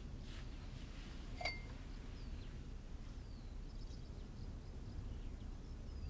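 Quiet background ambience: a low steady hum with a few faint, short bird chirps scattered through it, and one small click about a second and a half in.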